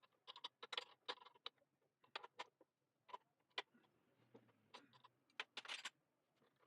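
Faint, irregular clicks and light taps, a dozen or so scattered unevenly.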